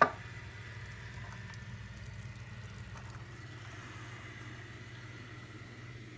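A single sharp knock at the very start, then a steady low mechanical hum with a faint thin high tone over it.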